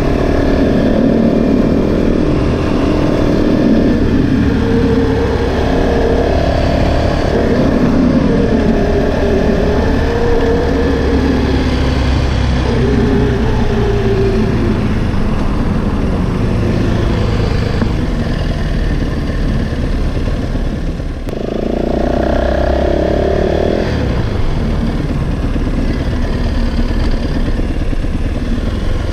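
Yamaha WR450F's single-cylinder four-stroke engine running as the dirt bike is ridden, its pitch rising and falling with the throttle. It eases off briefly about two-thirds of the way through, then picks up again.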